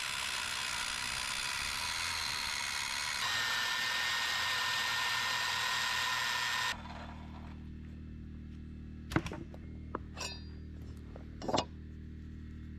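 An old 13-amp corded circular saw ripping a rough white pine board lengthwise. Its sound shifts a little about three seconds in, and it stops suddenly just past the middle. After that a steady low hum remains, with a few sharp knocks and clinks as a metal speed square is set on the board.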